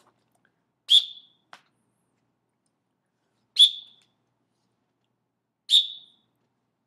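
Three short, sharp blasts on a whistle, each about two and a half seconds after the last.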